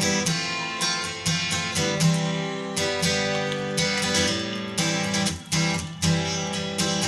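Background music: acoustic guitar strummed in chords at an even rhythm.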